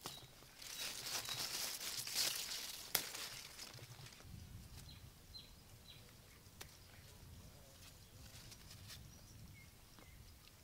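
Gourd vine leaves rustling and crackling close by as hands work through the trellis to pick gourds, with a sharp snap about three seconds in. The rustling then stops, leaving a quiet outdoor background with a few faint, short chirps.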